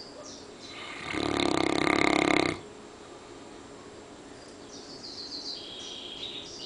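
Newfoundland dog snoring in deep sleep: one long, rough snore starting about a second in and lasting about a second and a half.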